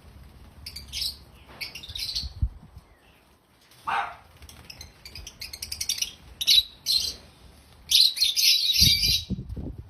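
African lovebirds chirping in short, shrill bursts of rapid notes, with one lower call about four seconds in and the densest, loudest chatter near the end. A few low thuds come near the end.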